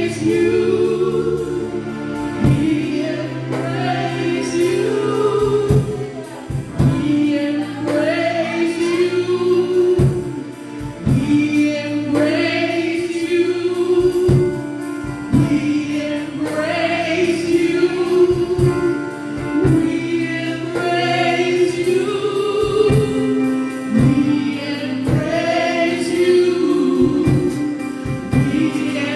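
Gospel worship music: a worship team singing together over sustained keyboard chords.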